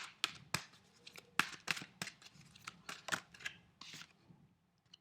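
A deck of oracle cards being shuffled by hand: a run of crisp, irregular card snaps and flicks, a few a second, that stop about four seconds in.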